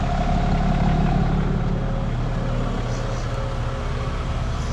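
An engine running steadily at a constant speed, a little louder in the first second or so.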